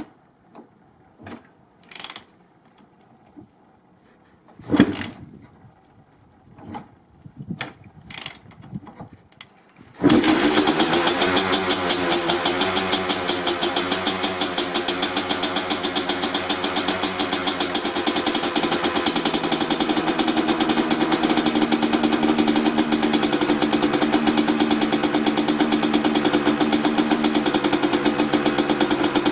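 1995 Honda CR250R single-cylinder two-stroke dirt bike cold-started by kick: several strokes of the kick lever turn it over without it firing, then about ten seconds in it catches. It runs unevenly for a few seconds with some throttle and settles into a steady, fast-pulsing idle.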